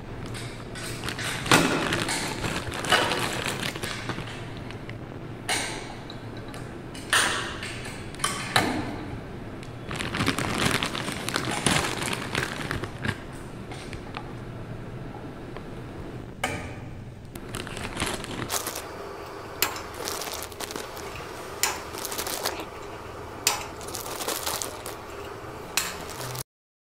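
Clear plastic wrapping film crinkling and rustling as it is handled, in irregular sharp crackles with several louder bursts.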